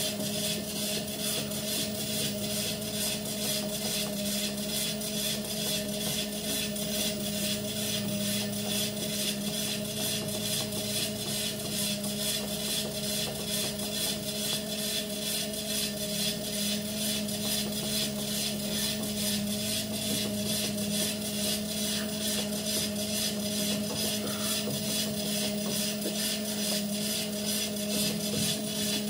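Electric treadmill running at a steady speed: an even motor hum with a fast, regular ticking from the moving belt.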